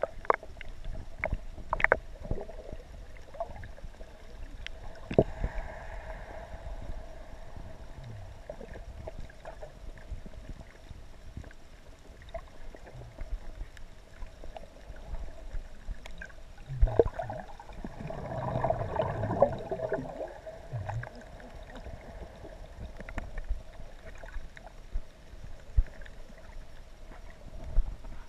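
Muffled underwater sound heard through a submerged camera: scattered clicks and knocks over a faint steady hum. A louder muffled rush of moving water swells about two-thirds of the way through.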